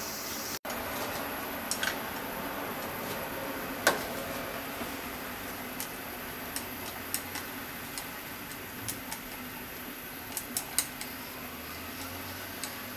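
Wooden chopsticks clicking and scraping against a ladle and the pot while miso paste is dissolved in the broth. Scattered light clicks, the loudest about four seconds in and a quick cluster near the end, over a steady hiss.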